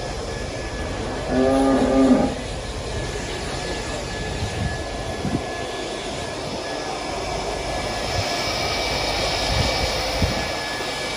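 A cow moos once, briefly, about a second and a half in, over the steady rush and faint whine of an electric cattle grooming blower, whose air noise grows louder in the second half.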